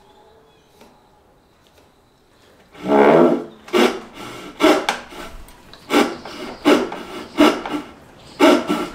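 Brass-backed backsaw ripping down into the end grain of a wooden board, with steady rasping push strokes about one every three quarters of a second. The strokes start about three seconds in.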